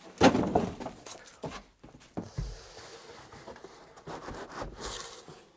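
Cardboard packaging being handled inside a large shipping carton: scraping and rubbing as a boxed part is gripped and pulled, with the loudest scrape right at the start and a soft knock a couple of seconds in.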